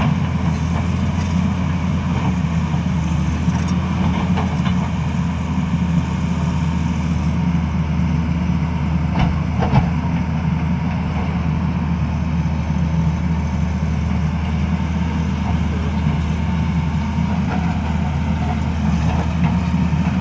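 Tata Hitachi crawler excavator's diesel engine running steadily as the machine works, a continuous low drone, with a few faint knocks about halfway through.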